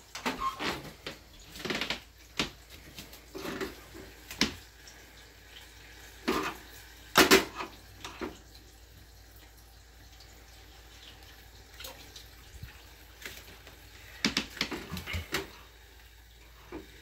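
Kitchen work sounds: dishes and utensils clattering in short bursts, with water splashing at a sink. The loudest clatter comes about seven seconds in, then a quiet stretch before another cluster of knocks near the end.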